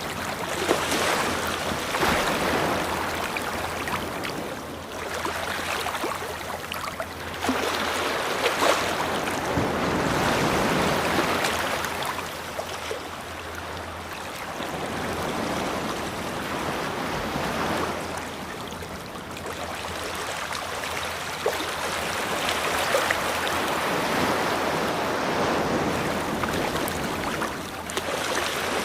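Ocean waves washing onto a shore: a continuous rush of surf that swells and ebbs every few seconds.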